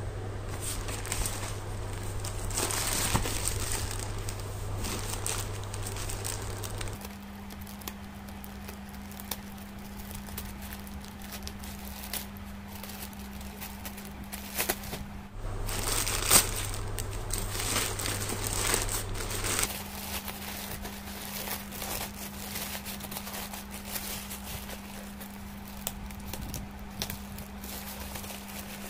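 Plastic courier mailer bag crinkling and rustling as it is handled, cut with scissors and torn open, with the loudest stretches of crinkling early on and again past the middle. Near the end the air-column bubble wrap inside rustles as it is pulled out.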